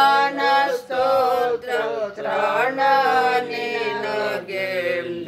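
Voices chanting a psalm, singing phrase after phrase of long held notes.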